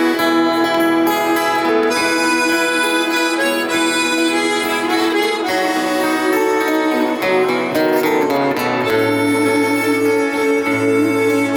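Instrumental break of a live ballad: a harmonica plays a sustained, reedy melody over acoustic guitar accompaniment.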